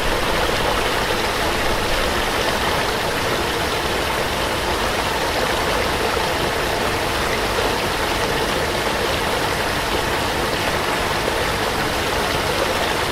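Small waterfall: water pouring and splashing steadily.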